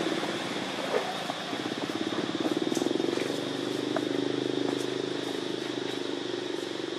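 A motor vehicle's engine running steadily, louder from about two seconds in, with a few faint clicks.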